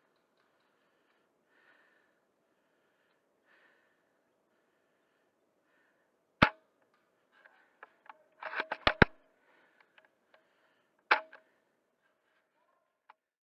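Airsoft rifle shots over faint background: a sharp crack about six seconds in, a quick cluster of snaps and clicks around nine seconds, and another sharp crack near eleven seconds.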